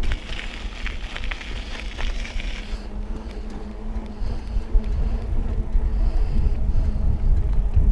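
A mountain bike riding along a gravel rail trail: a crackling, crunching sound for about the first three seconds, then wind rumbling on the microphone that grows stronger from about halfway through.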